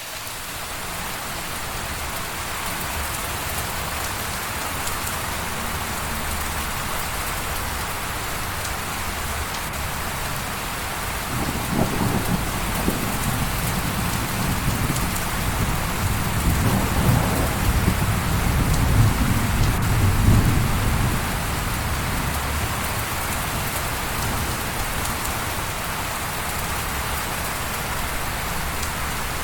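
Steady rain falling and pattering on surfaces, fading in over the first couple of seconds. About a third of the way through a low rolling rumble of thunder builds, swells to a peak and dies away after about ten seconds, while the rain carries on.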